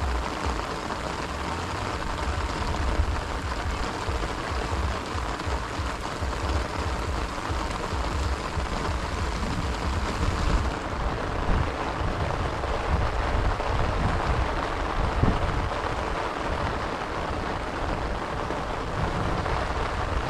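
Mountain bike riding down a wet, slippery trail: a steady hiss with an uneven low rumble of wind and bumps on the camera.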